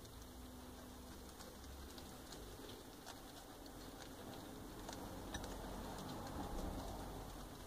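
Guinea pig chewing a fresh leaf: scattered small crisp crunching clicks over a soft rustle that grows louder a few seconds in.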